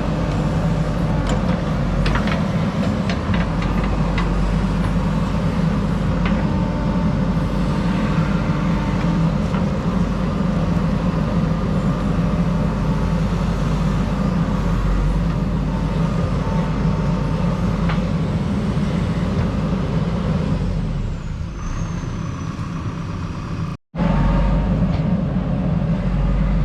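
JCB backhoe loader's diesel engine running steadily under load as it works, with occasional short knocks and clanks. The sound drops out abruptly for a moment near the end.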